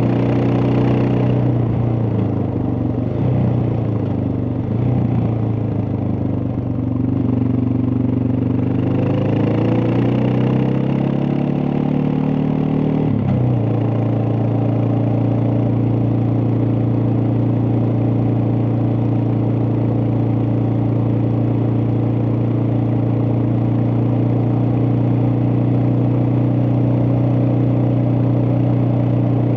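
Suzuki DR650's single-cylinder engine running. Its pitch wavers up and down for the first half, drops sharply about thirteen seconds in, then holds steady.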